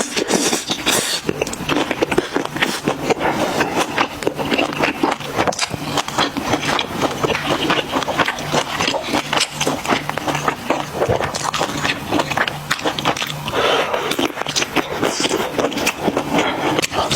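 Close-miked mukbang eating sounds: a person chewing and biting food, with dense wet, crackly clicks and scrapes.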